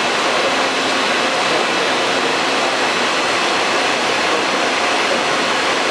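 Loud, steady rushing noise of heavy machinery running in a large machine shop, without distinct beats or changes.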